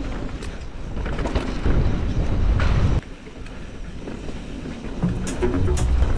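Wind buffeting a mountain biker's action-camera microphone, mixed with tyre and trail rattle on a dirt descent. The sound drops off abruptly about halfway through.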